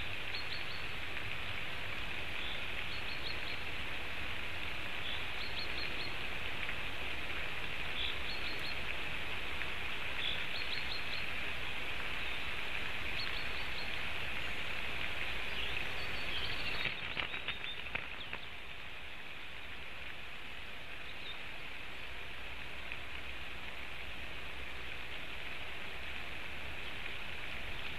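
Steady hiss of heavy rain falling on the eagle nest and surrounding forest. Small groups of short, high bird chirps repeat every two to three seconds, and the rain's hiss gets slightly quieter about two-thirds of the way through.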